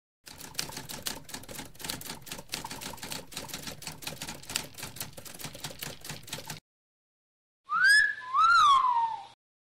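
Rapid, irregular clicking, a dense clatter lasting about six seconds that stops abruptly. After a short gap come two brief high-pitched vocal cries, the first rising and the second rising then falling.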